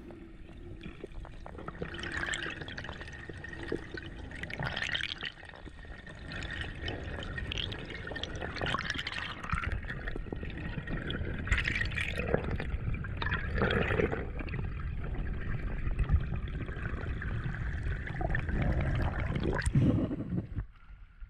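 Water sloshing and gurgling around an underwater camera during a free dive, in uneven swells. Near the end the camera comes up and breaks the surface.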